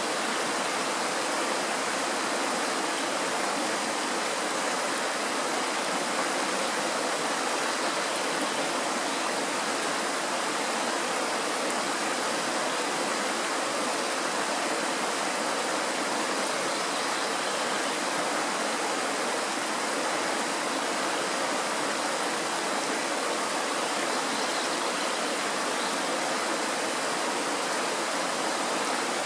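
Mountain stream rushing over rocks in a small white-water rapid: a steady, unbroken rush of water.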